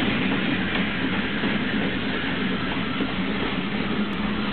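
2-6-2 steam locomotive 1077 under way, heard from inside its cab: a steady, loud mix of running machinery and wheels on the rails, with a low hum throughout.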